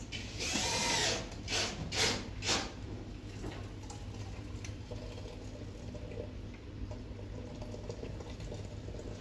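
Water poured briefly from a kettle into a cup, then a few light clinks of teaware, over a low steady hum.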